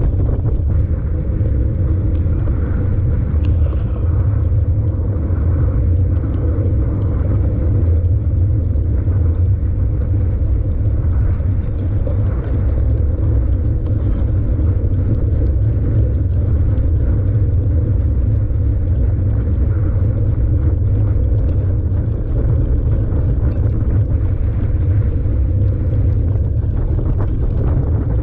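Steady low rumble of wind buffeting a camera mounted on a mountain bike, mixed with the bike's riding noise as it is ridden.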